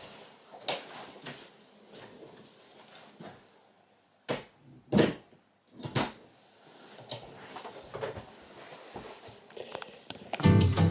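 Someone moving about a small room, handling things: soft rustling and about five sharp knocks and clunks, like a drawer or cupboard being shut. The loudest two come close together around the middle.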